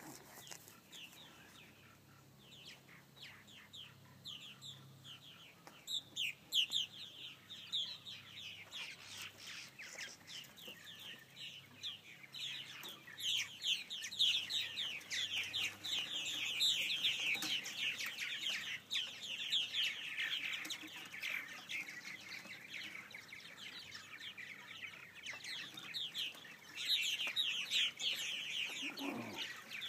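A flock of purple martins calling in flight: many overlapping short, falling chirps, sparse at first, then dense and loud from about six seconds in, busiest in the middle and again near the end.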